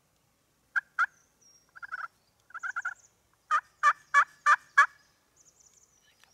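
Wild turkey calling: two short notes, two quick rattling runs, then five loud, evenly spaced notes about three a second.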